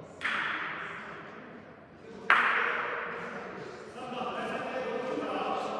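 Two sharp cracks of gateball mallet on ball, about two seconds apart, the second the louder, each ringing on in the hall's echo.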